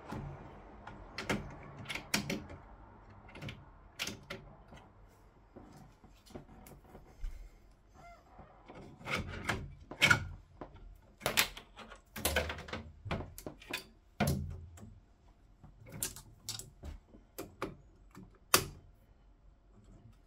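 Irregular clicks, taps and knocks of plastic and metal parts being handled and fitted together by hand as a tool-changer dock assembly goes back onto a 3D printer's frame. There is a busier run of knocks in the middle and one sharp, louder click near the end.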